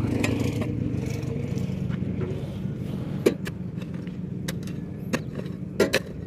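Powertrac Euro 50 tractor's diesel engine idling steadily, with a hoe digging into gravelly soil beside the wheel: a few sharp strikes and scrapes from about three seconds in, two close together near the end.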